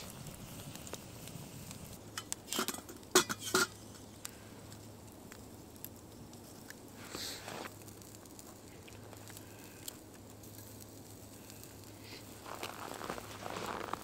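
A wood campfire crackling quietly, with a few sharp knocks and clinks two to four seconds in, then rustling and steps in snow near the end.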